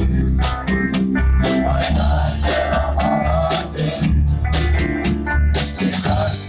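A pop-rock cover song played loud, with a steady drum beat, bass, guitar and singing.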